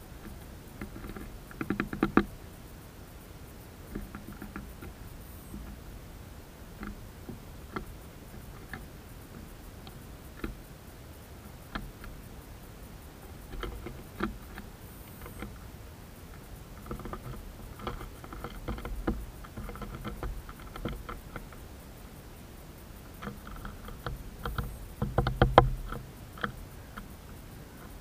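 Great tit pecking at grain and hopping about on a wooden feeder tray: irregular light taps and clicks in bursts, the loudest cluster, with a few soft thumps, near the end.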